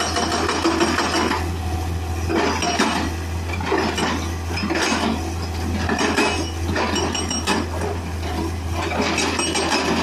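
Excavator-mounted hydraulic breaker (rock hammer) pounding rock, its chisel striking in a rapid metallic clatter. It runs in bursts of a second or two with short pauses between, over a steady low hum.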